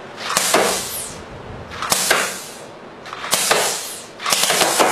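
Homemade compressed-air Gatling gun of six Coke bottles firing four short bursts. Each burst is a quick run of sharp air blasts with a hiss as the valves snap open one after another and shoot bolts out of the barrels.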